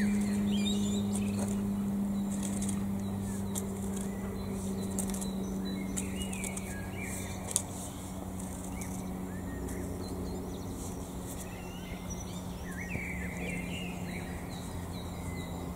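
Garden rake scraping through loose soil, with songbirds chirping and the steady drone of a passing aeroplane slowly fading.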